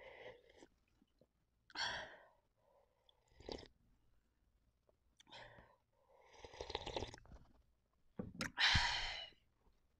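A person slurping hot, spicy instant-noodle broth straight from a bowl and breathing out in short huffs between sips, five or so breathy bursts with the loudest near the end.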